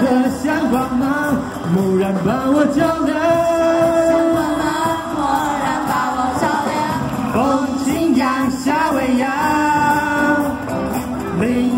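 Live student band playing a song: voices singing over strummed ukuleles, acoustic guitar and a drum kit.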